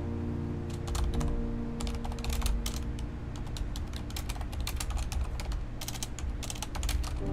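Typing on a Corsair mechanical keyboard: quick, irregular key clacks that start about a second in and run on in flurries.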